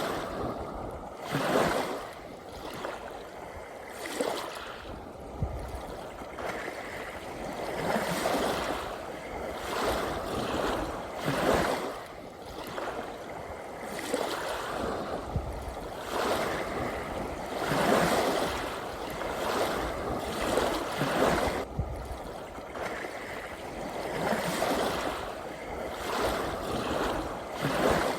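Ocean waves washing in: a continuous hiss of water that swells and falls every two to four seconds.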